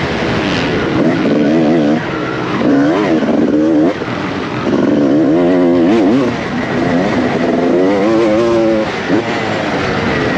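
Honda CR250R two-stroke dirt bike engine revving hard on the track, its pitch repeatedly climbing under throttle and then falling away as the rider shifts or rolls off, heard close from the bike.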